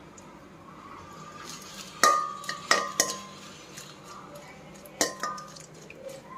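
Perforated steel spatula stirring dried red chillies in hot oil in a metal kadai, striking the pan. There is a hard clink about two seconds in, two more just before and at three seconds, and another pair around five seconds, each ringing briefly.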